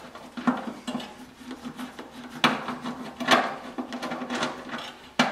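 Irregular metal clicks and clinks of a hand driver turning out a screw on a furnace blower motor and knocking against its sheet-metal blower housing. A faint steady hum runs underneath.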